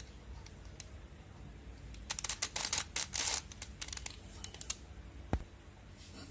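Plastic Rubik's Cube faces being turned by hand: a quick run of clicks and rattles about two seconds in, then a few scattered single clicks.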